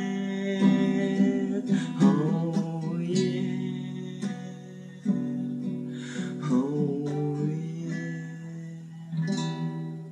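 Acoustic guitar playing the outro of a song without vocals, chords struck about once a second and left to ring, the music gradually fading out.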